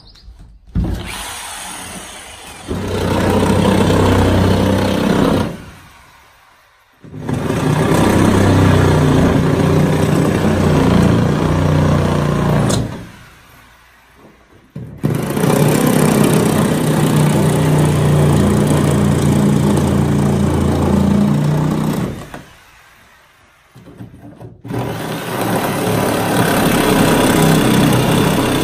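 A motor or small engine running steadily in long stretches, dying away twice before starting up again.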